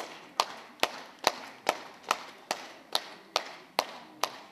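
Audience clapping in unison to a steady beat, a little over two sharp claps a second.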